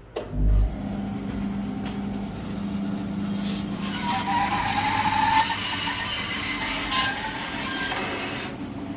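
Bandsaw switched on: the motor starts with a thump and runs with a steady hum. From about three seconds in, the blade cuts into a bark-covered log, adding a loud rasping hiss with a wavering whine. The cutting eases off near the end, leaving the saw running.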